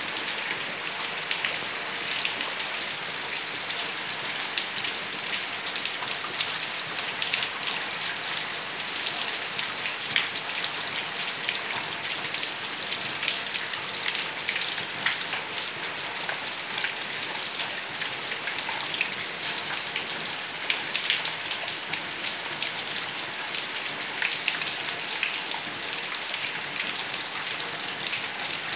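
Steady rain falling on a wet concrete yard and puddles: an even hiss dotted throughout with the small sharp hits of individual drops.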